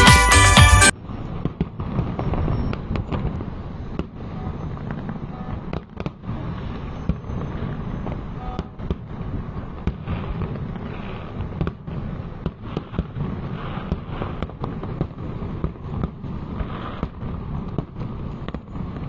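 Fireworks display: a rapid, irregular run of bangs and crackles that goes on throughout. A jingly music track plays loudly for about the first second, then cuts off suddenly.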